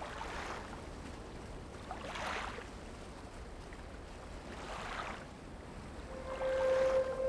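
Gentle sea waves washing in soft swells about every two to three seconds over a low steady rumble. About six seconds in, a sustained musical note with higher tones above it comes in and grows louder.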